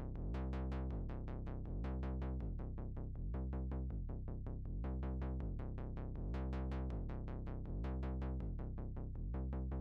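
Background electronic music with a quick, steady pulse of short notes over a low bass.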